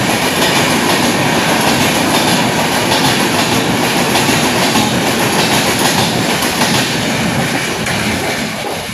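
Rajdhani Express LHB coaches running through the station at speed: a loud, steady rush of wheels and bogies with clatter over the rail joints, easing slightly near the end.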